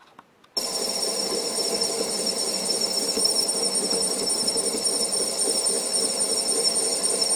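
MN-80 lathe running and turning the outside of a stainless steel pipe: a steady high-pitched whine over the machine's hum. It starts suddenly about half a second in.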